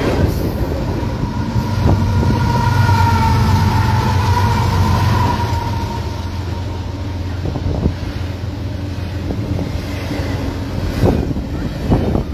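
Double-stack container freight cars rolling past: a steady rumble of wheels on rail. A thin, high squeal comes and goes between about two and six seconds in, and there are a few sharp clanks near the end.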